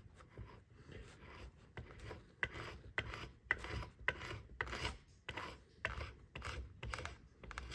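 A flat metal scraper scrapes stripper-softened finish off a flintlock pistol's wooden stock in short, repeated strokes, about two a second.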